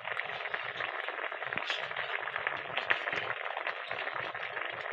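Split green vegetable pieces cooking in a hot metal pan, bubbling and sizzling with a dense, steady crackle. The sound cuts off abruptly at the end.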